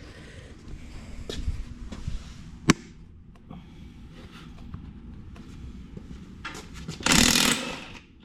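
A few scattered clicks and clanks of tools against metal, including one sharp click, then near the end a short, loud burst of an impact wrench hammering, lasting under a second, as it breaks loose a rear-wheel lug nut.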